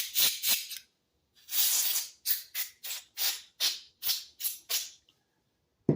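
Short hissing blasts blown through a small carburetor's jets and passages to clear them: a few quick puffs, one longer blast, then about nine quick puffs at roughly three a second.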